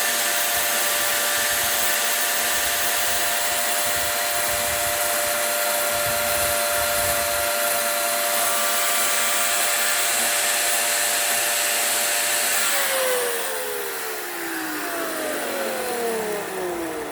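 Electric power tool's motor running at a steady high whine, then switched off about thirteen seconds in and spinning down, its pitch falling smoothly for the last four seconds.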